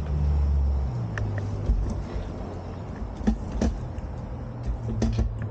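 Vehicle engine running steadily with a low hum that steps down in pitch about a second in, with a few scattered clicks.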